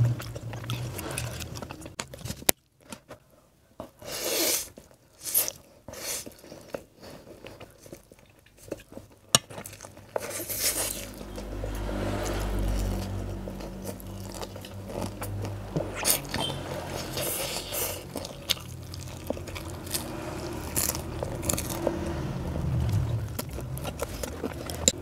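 Close-miked eating: crunchy bites and chewing of crispy fried chicken and Chappaghetti noodles, with a fork scraping the plate now and then. The chewing is irregular, with a brief lull a few seconds in.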